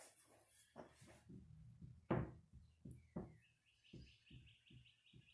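Faint, irregular knocks and taps, the clearest about two and three seconds in. From about three and a half seconds in, a bird chirps over and over, about four chirps a second.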